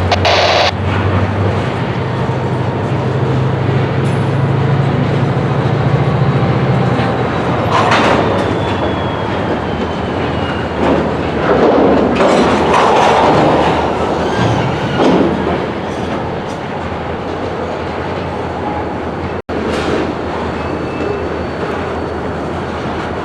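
Freight train moving through a rail yard: cars clicking over the rail joints, with a diesel locomotive's engine drone that rises in pitch about a second and a half in and fades out after about seven seconds. A single clank about eight seconds in, with faint wheel squeal.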